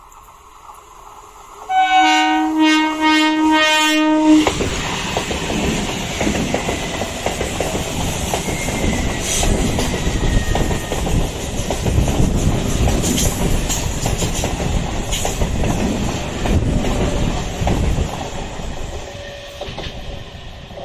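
WAP-4 electric locomotive's horn sounding as a rapid series of short blasts, then the locomotive and its train pass close by with loud, continuous rail noise that eases off over the last few seconds.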